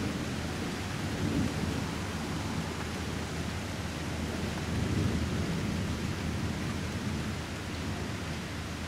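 Thunder rolling low and distant over the steady hiss of rain, swelling about a second in and again around five seconds in.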